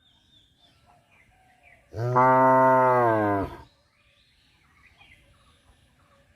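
A cow mooing once, about two seconds in: one long, level call lasting about a second and a half that dips slightly in pitch as it ends. Faint bird chirps sound in the background.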